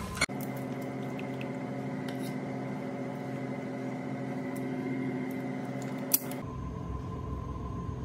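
A steady machine hum made of several tones at once, with a few light clicks over it. A sharp click comes about six seconds in, and after it the hum changes to a thinner one.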